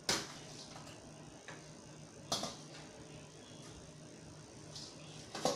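Metal spoon clanking against a stainless steel pot and bowl, three sharp clanks a couple of seconds apart, over a faint steady hum.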